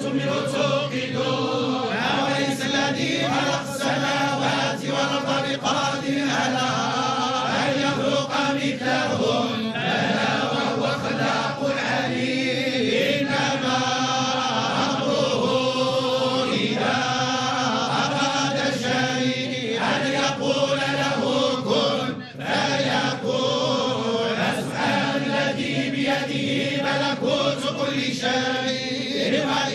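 A group of men chanting Islamic religious verses in unison, a sustained melodic chant with a short break about 22 seconds in.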